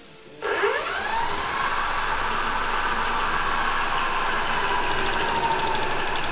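An e-bike's rear hub motor spinning the raised wheel up to high speed on a test run: it starts suddenly about half a second in, its electric whine rising over about a second and then holding steady.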